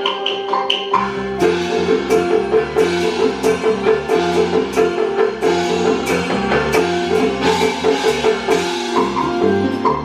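Taiwanese opera backing band playing an instrumental interlude. A wood block ticks about three times a second, then about a second in the full band comes in with a steady beat and a bass line.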